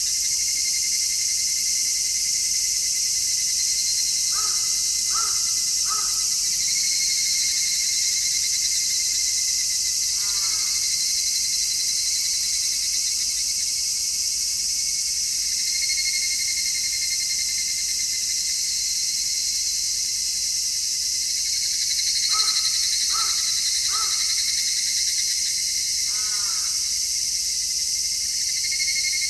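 A chorus of cicadas singing steadily in midsummer heat. A bird calls twice over it: three short notes in a row, followed a few seconds later by one curving call.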